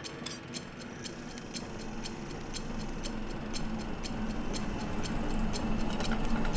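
A clock ticking steadily, about four ticks a second, over a low sustained drone that slowly swells louder.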